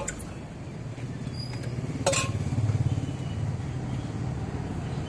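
A motor vehicle engine running close by, its low rumble swelling around the middle, with one sharp knock about two seconds in.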